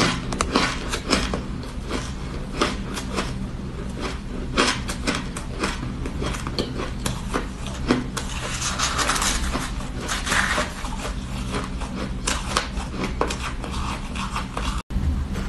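Shaved ice being crunched and chewed, with a plastic spoon scraping and clicking in it: a steady stream of small crisp crackles and crunches over a steady low hum.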